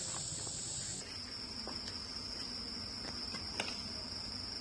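Insects singing steadily in a high, continuous shrill that drops to a lower pitch about a second in, with a few faint clicks.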